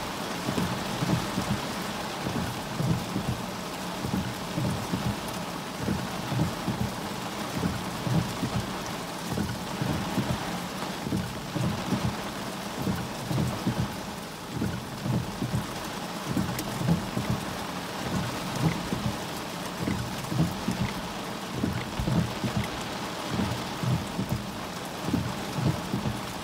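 Heavy tropical downpour pounding on a car's roof and windshield, heard from inside the car: a steady hiss of rain with a dense, irregular patter of low thuds from big drops striking the car.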